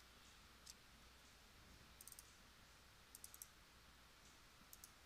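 Near silence broken by a few faint clicks of a computer mouse and keyboard, some single and some in quick pairs or triples.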